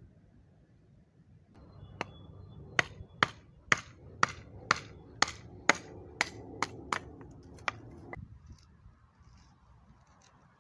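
About a dozen sharp hammer-like strikes, roughly two a second, that begin about two seconds in and stop near eight seconds.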